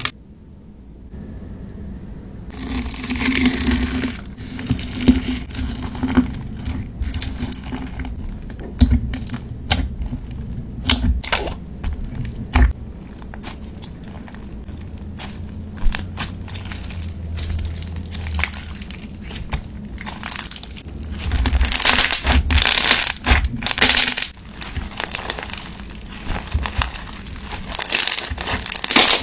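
Floam slime squeezed and kneaded by hand, its foam beads crackling and crunching in a busy run of small sharp clicks, loudest about three-quarters of the way through.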